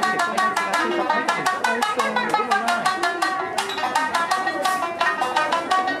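Tsugaru shamisen played solo, the plectrum striking the strings in a fast, unbroken stream of sharp plucked notes.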